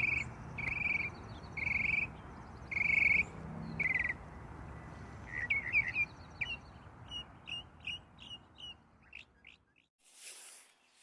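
Birds calling: a short, repeated call about once a second for the first four seconds, then quicker, scattered chirps, over a steady low rushing background that stops near the end. A soft breathy noise follows shortly before the end.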